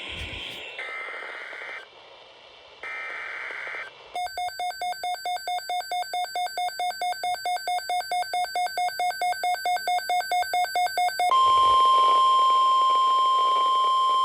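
EAS alert signalling on NOAA Weather Radio. Two short screechy SAME data bursts are followed by an electronic alarm beeping about four times a second for some seven seconds, getting steadily louder. About eleven seconds in, the steady 1050 Hz weather radio warning alarm tone starts.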